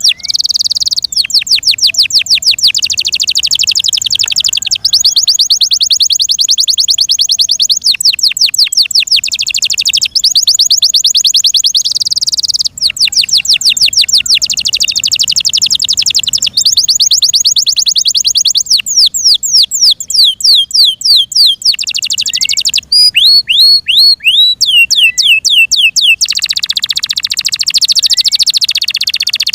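An F1 Yorkshire-cross canary singing continuously in a long chain of rapid, high trills, switching to a new trill every second or two. About two-thirds through come slower, sweeping notes, and a lower, buzzier trill comes near the end.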